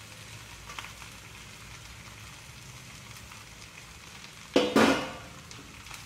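Chopped onions and minced meat frying in a non-stick kadai with a faint, steady sizzle. About four and a half seconds in, a steel spoon scrapes and stirs loudly through the pan for about half a second.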